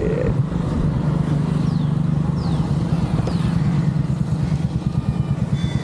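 A small vehicle engine idling close by: a steady, low, rapid pulsing that holds even throughout.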